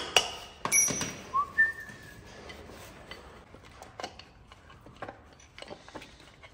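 Steel gear parts from a Centurion tank starter motor's gearbox clinking and ringing as they are handled during disassembly, with two short high tones about a second and a half in, then lighter taps and handling sounds.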